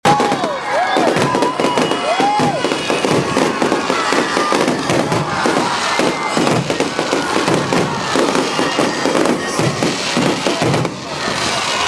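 Fireworks display: aerial shells bursting in a dense, continuous barrage of bangs and crackling.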